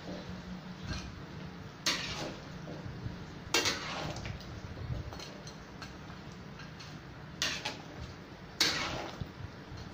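Spatula stirring chunks of chicken through thick chilli sauce in a large metal wok, scraping and knocking against the pan. Four sharper knocks stand out among irregular smaller clinks.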